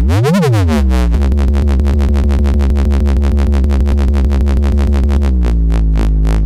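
Dubstep-style electronic music played from sampler pads in the iMPC Pro app. A deep sustained bass opens with a quick rising-and-falling pitch sweep, then a fast stuttering rhythm runs over the bass, which thins out near the end.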